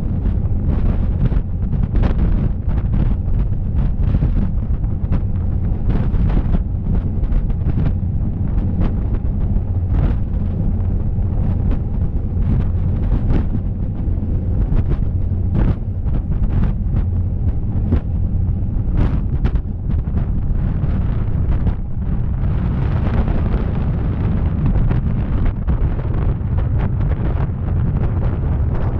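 Heavy wind buffeting the microphone on the open deck of a fast-moving water taxi, in constant irregular gusts over a steady low rumble of the boat under way. About two-thirds of the way through a brighter rushing sound joins in.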